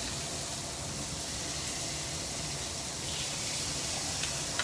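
Chicken pieces sizzling on a hot grill pan, a steady even hiss.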